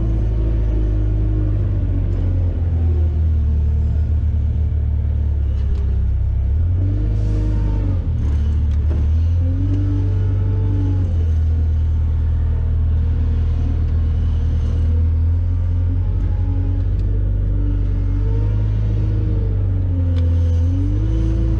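Compact wheel loader's diesel engine running, heard from inside the cab, with heavy low rumble; its pitch rises and falls several times as the engine speeds up and drops back.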